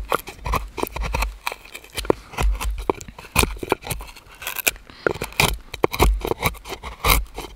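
Steel carving gouge pushed by hand through the hollow of a wooden bowl blank, a quick, irregular series of short scraping cuts as shavings lift from the wood.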